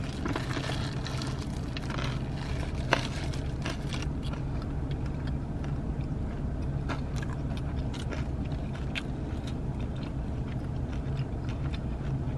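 Close-up biting and chewing of a burger topped with crunchy corn nuts and tortilla strips, with sharp crunches now and then, the strongest about three seconds in. A steady low hum runs underneath.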